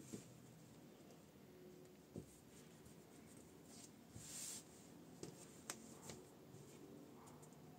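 Faint rustle of fabric being folded and handled by hand, with a few small ticks scattered through; the loudest rustle comes about four seconds in.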